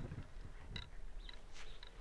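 A glass bowl knocks once against a wooden tabletop, followed by faint handling of the bowl, with a few short bird chirps in the background.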